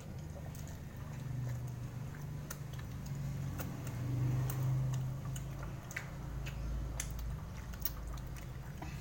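A person chewing a mouthful of food, with scattered small mouth clicks over a steady low hum.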